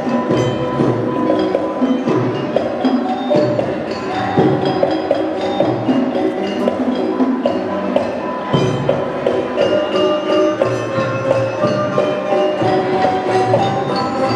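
Gamelan-style music: metal mallet instruments ring out a busy run of struck notes over a steady, drum-kept beat, played continuously as dance accompaniment.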